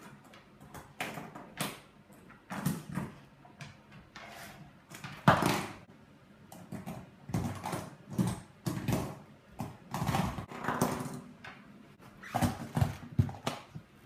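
Pit bull terrier worrying a fidget spinner on a wooden floor with its nose and paws: a run of irregular short knocks and scuffs of the spinner and the dog on the floorboards, the loudest about five seconds in.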